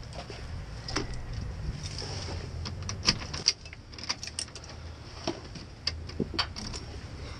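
A bunch of keys jangling, with sharp metallic clicks at a glass shop door's lock and handle as the door is locked, over a low steady rumble.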